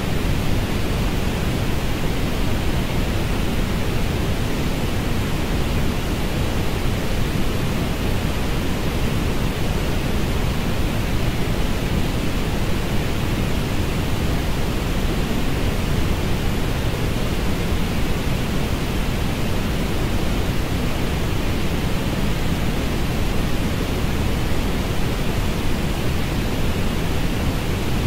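Orange noise: a generated, steady hiss weighted toward the low end, with a lighter band of brighter hiss higher up and no change in level or character.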